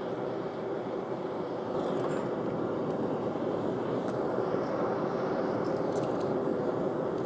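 Gas forge burner running with a steady rushing noise, a little louder from about two seconds in, as an axe head is brought up to hardening temperature before the quench. A couple of faint clinks come about two and six seconds in.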